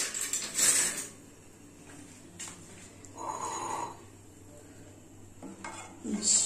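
Kitchen utensils clattering: a loud clatter in the first second, a short scrape a little past the middle, then a steel ladle clinking against a non-stick pan as curry is scooped out near the end.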